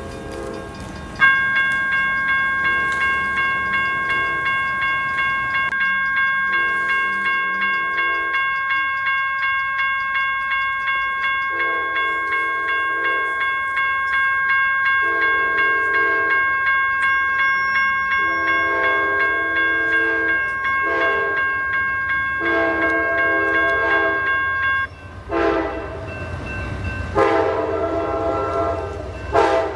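Railroad crossing bells ringing steadily at a level crossing, with flashing signals and gates down, while the approaching Amtrak Silver Star passenger train sounds its horn in repeated blasts of a second or two. The bells cut off about 25 seconds in. After that the horn blasts grow louder over a rising low rumble as the train draws near.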